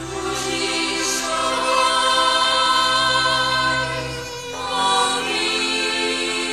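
Music with a choir singing long held notes; the chord changes and the low notes drop away about four and a half seconds in.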